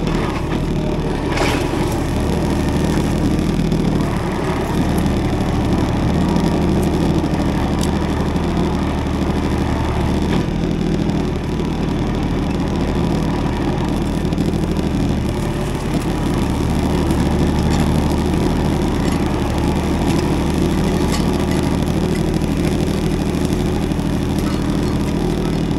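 Tractor engine running steadily at an even pitch.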